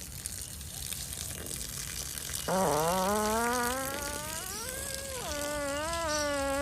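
A long, buzzing fart starts suddenly about two and a half seconds in and holds for about four seconds, its pitch rising slowly and then wavering. Before it there is only a steady hiss.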